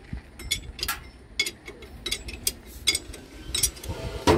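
Irregular sharp metallic clicks, a few a second, with a louder knock near the end, from hand work on the hydraulic control valve block of a Hyundai R215L excavator.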